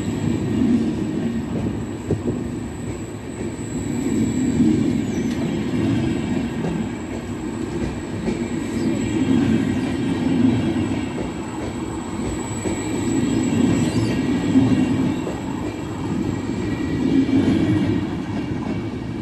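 Trenitalia Vivalto double-deck coaches rolling past close by as the train pulls out of the station, a steady rumble of wheels on the rails that swells and fades every few seconds.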